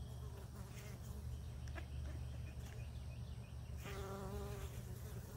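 A flying insect buzzes close to the microphone for about a second, near the end, over a steady low rumble.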